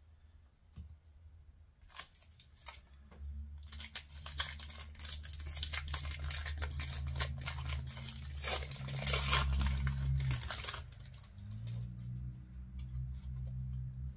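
A Pokémon trading card booster pack being opened by hand: after a few light clicks, the foil wrapper crinkles and tears in a dense run of rustling from about four seconds in, loudest around nine to ten seconds, stopping about eleven seconds in. A steady low hum runs underneath.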